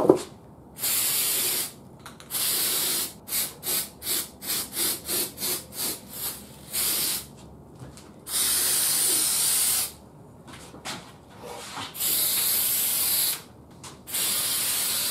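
Aerosol can of green glitter spray paint hissing in bursts: two short sprays, a run of about nine quick puffs, then three longer sprays of one to two seconds each. A sharp knock right at the start.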